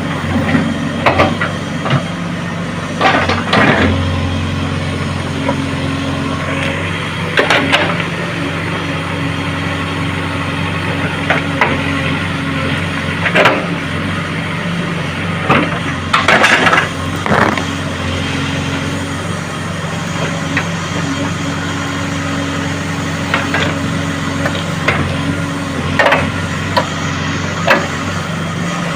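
Diesel engine of a JCB excavator running steadily under load while it digs, with irregular clanks and knocks of the bucket against earth and road surface about every few seconds.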